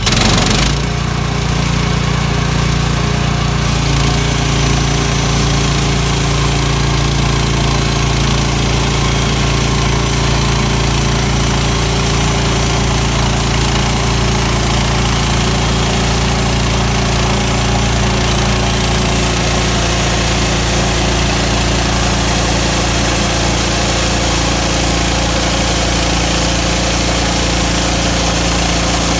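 Sawmill engine running steadily; it gets louder about half a second in, then holds an even pitch.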